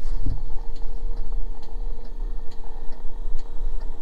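The 1960s Ford fire truck's light flasher ticking at an even pace, about two ticks a second, with the warning lights switched on. A steady low hum runs underneath.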